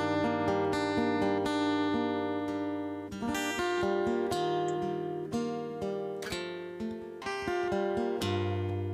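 Acoustic guitar playing chords in an instrumental passage between sung lines, with a run of picked notes and strums; the playing thins a little after about three seconds.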